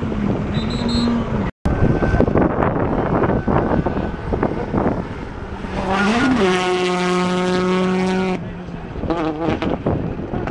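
Rally cars at speed on a special stage, engines at high revs over tyre and gravel noise. About six seconds in, a Peugeot 208 T16 rally car passes close, its engine note climbing and then holding steady for a couple of seconds.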